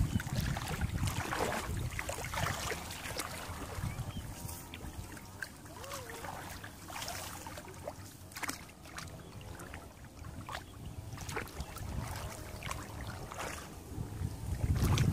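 Shallow muddy paddy water sloshing and splashing irregularly as people wade and grope through it by hand, over a low wind rumble on the microphone.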